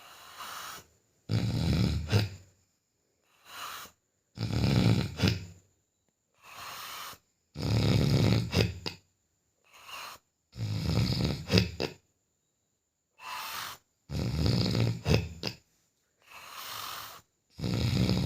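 Loud snoring: about one breath every three seconds, each a rough, rattling inhale about a second long followed by a softer, shorter exhale.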